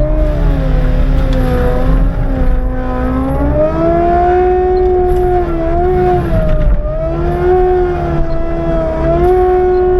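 CAT skid steer running a forestry mulcher head through brush, heard from inside the cab: a loud steady engine rumble under a spinning-rotor whine whose pitch sags and recovers several times as the head bites into the growth.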